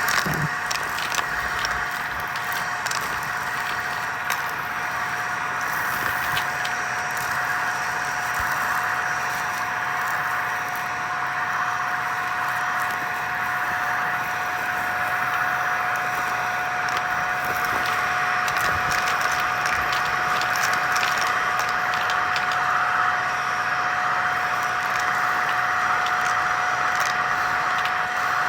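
Vacuum cleaner running steadily with a constant whine, and scattered crackles and ticks of crunchy debris being sucked up.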